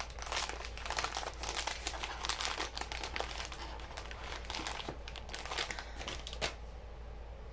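Packaging crinkling as a cosmetic product is unwrapped by hand: a dense run of crackles that stops about six and a half seconds in.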